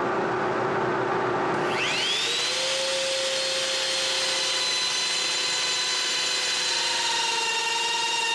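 A lathe runs with a steady machine noise, then about two seconds in a high whine rises in pitch and settles to a steady tone as the trim router mounted on the lathe's tool post spins up and runs against the turning cue forearm.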